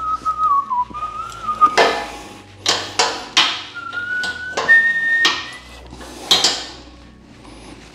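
Sharp metal clanks and knocks of hand tools working a rubber exhaust hanger off a car's exhaust, several over a few seconds. A person whistles a wandering tune in two short stretches over them.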